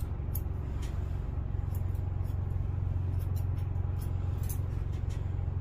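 Grooming scissors snipping at a dog's coat, short sharp snips at irregular intervals, about eight of them, over a steady low electric hum.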